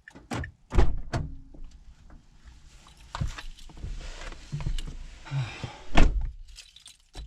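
Car door and handling sounds inside a vehicle: a series of sharp knocks and thunks, the loudest about six seconds in, with a brief hiss in between.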